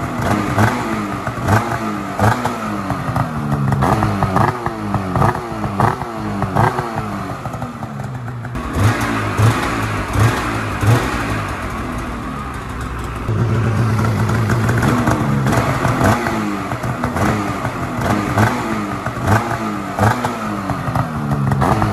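Polaris 850 Patriot two-stroke twin snowmobile engine breathing through a GGB mountain can aftermarket muffler, blipped repeatedly on the throttle so the revs jump and fall back about every two-thirds of a second. Partway through it settles to a steady idle for a few seconds, then the blips start again.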